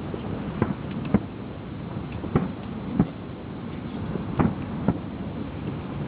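Fireworks shells bursting, about six sharp bangs at uneven intervals over a steady hiss of wind on the microphone.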